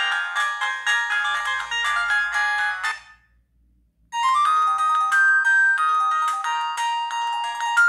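BenQ-Siemens A38 mobile phone playing its built-in ringtones, melodies of several notes at once. One tune cuts off about three seconds in, and after a second of silence the next ringtone starts.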